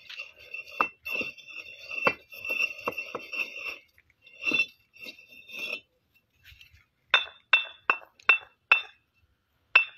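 Fired clay bricks clinking. Scattered knocks on the brick stack over the first few seconds, then, from about seven seconds in, two bricks struck together five times, about two a second, each strike a sharp ringing clink.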